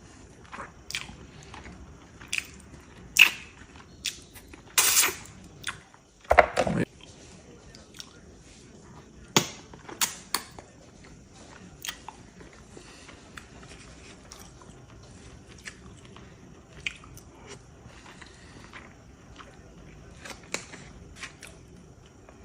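A person chewing and biting food, with scattered crunches and wet clicks of the mouth. A brief, louder thump comes about six seconds in.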